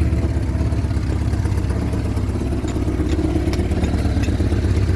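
1975 Vauxhall Viva HC's four-cylinder engine idling steadily while it warms up to temperature.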